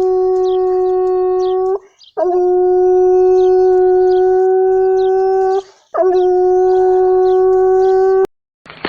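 American foxhound howling: three long, drawn-out howls at a steady pitch, each lasting a few seconds with short breaks between, the last cut off abruptly near the end.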